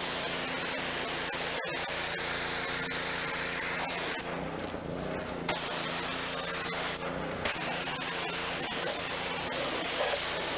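Pressure washer spraying: a steady hiss of water over the hum of its running engine. The spray cuts out twice, for over a second about four seconds in and briefly near seven seconds, while the engine keeps running.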